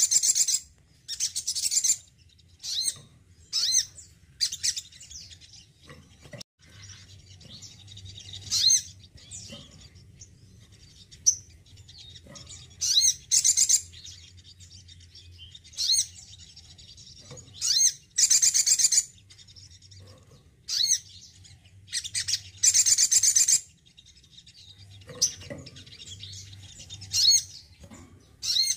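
Male olive-backed sunbird calling in short bursts of high, rapid chirping twitters, with pauses of a second or two between them.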